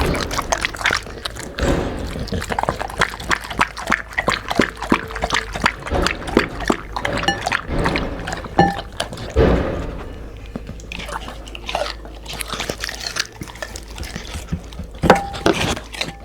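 Dogs eating wet food: a dense, irregular run of wet licking and smacking clicks with chewing, and a few louder knocks against the dish.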